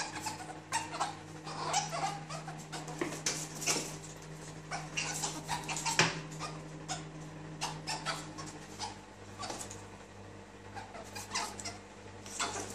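A domestic cat and a pet ferret fighting: a run of scuffles and light knocks, with short animal cries among them. Under it runs a steady low hum that stops about two-thirds of the way through.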